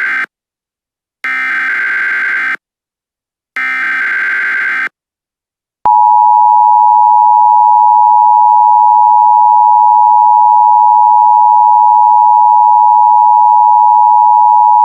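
Emergency Alert System tones: two buzzy bursts of SAME header data about a second long each, following the tail of a first, then the steady two-tone EAS attention signal starting about six seconds in.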